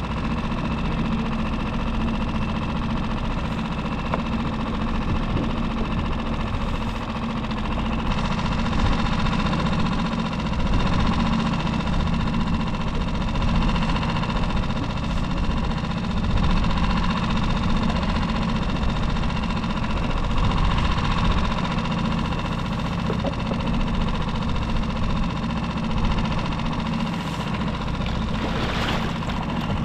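Small boat motor idling steadily. Near the end a hooked yellowtail splashes at the surface beside the hull.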